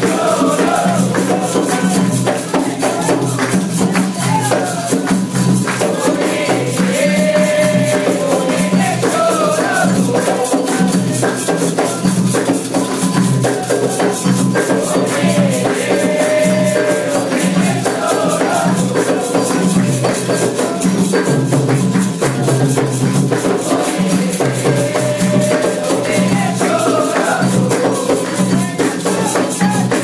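Candomblé toque for Oxum: atabaque hand drums keep a steady, driving rhythm, with rattles and hand-claps on top and a voice singing a chant line that rises and falls and returns every several seconds.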